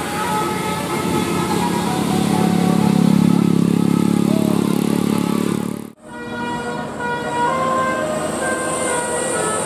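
Bus with a multi-tone telolet horn passing while the horn plays a string of short musical notes. The engine rumble swells about three seconds in, then the sound cuts off abruptly near six seconds. More horn tones and a high hiss follow.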